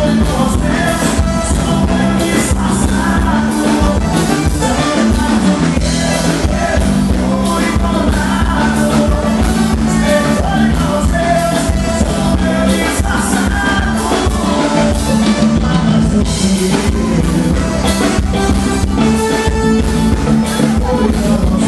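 Live forró band music played loud through a stage PA, with a drum kit keeping a steady beat and singing over it.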